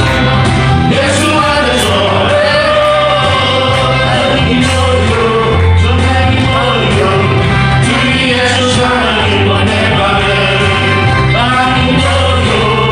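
A vocal ensemble singing a Korean gospel song over instrumental accompaniment with a steady bass line.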